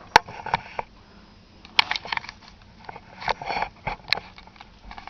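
Handling noises while an object is set in place: a few sharp clicks or knocks with short rustles between them.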